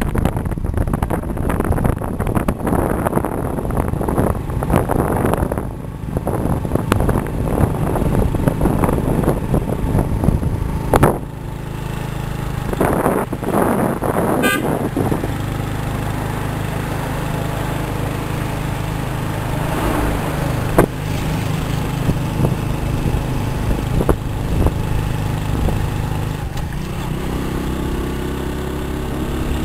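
A vehicle on the road, its engine running with wind buffeting the microphone. The wind is gusty for the first ten seconds or so, then gives way to a steadier engine hum, with a rising engine note near the end.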